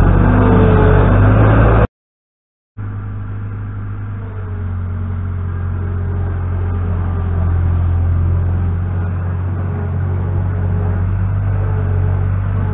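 New Holland LX665 skid steer loader's engine running with a steady low hum. The sound cuts out for about a second at an edit, then the engine resumes and grows a little louder.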